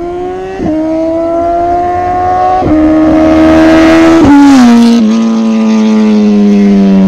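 Motorcycle engine accelerating through the gears. Its pitch climbs and then drops at each of three upshifts: about half a second in, near the middle, and just after four seconds. After that the note falls steadily as it eases off, with a rush of wind noise as the bike goes past.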